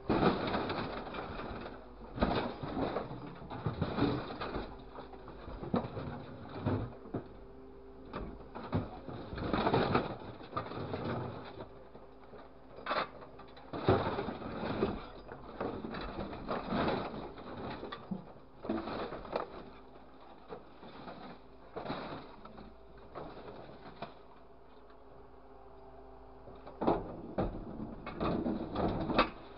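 Grapple truck's orange-peel grapple handling scrap metal: irregular rattling and crunching of scrap sheet metal, in loud surges every second or two, over a steady engine-and-hydraulics hum.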